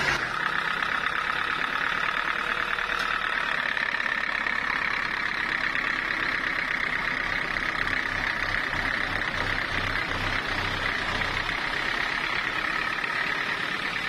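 Belt-driven engine of a sawmill running steadily, with no cutting under way. A low throbbing pulse comes in about seven seconds in and fades about four seconds later.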